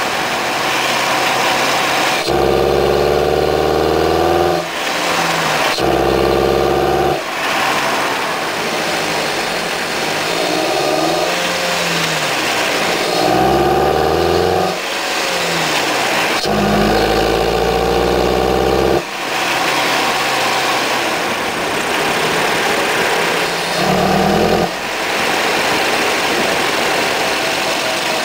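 2006 Nissan Sentra SE-R Spec V's 2.5-litre four-cylinder heard at its air intake, revved about six times from idle. Each rev rises for one to three seconds and drops back to idle.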